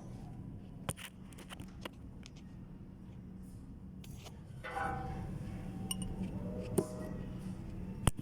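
Scattered metal clinks and taps of hand tools, socket extensions working on gearbox bolts, with the sharpest clink near the end, over a steady low hum.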